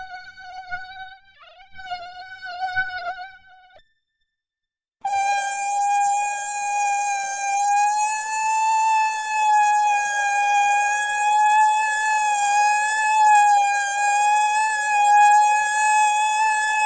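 Mosquito in flight, its high whining buzz wavering in pitch and swelling and fading for the first few seconds. It cuts out for about a second, then comes back louder and steadier.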